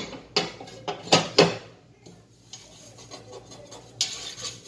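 Metal griddle clattering against the stove as it is set in place: four sharp knocks in the first second and a half, then a brief scraping rustle near the end.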